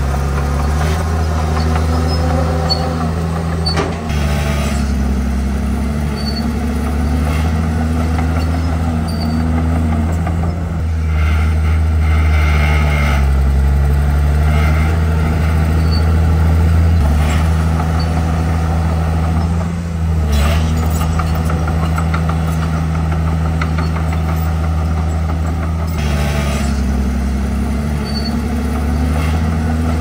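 Komatsu D51PX crawler bulldozer's diesel engine working under load as it pushes soil, a steady drone whose pitch rises and sags slightly, with a few brief hisses.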